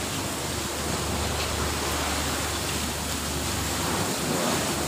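Heavy storm rain pouring onto a boat's deck and the sea, a steady hiss. A low steady hum sits beneath it and drops away about four seconds in.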